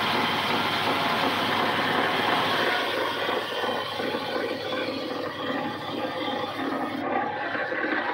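Sawmill machinery running steadily, a continuous mechanical drone with a low hum.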